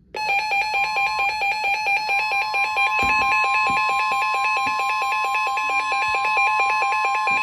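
Emergency alert tones on a weather alert receiver: a rapid, even electronic beeping that starts suddenly, joined about a second in by a steady single tone like the NOAA Weather Radio warning alarm tone. They announce an incoming severe thunderstorm warning.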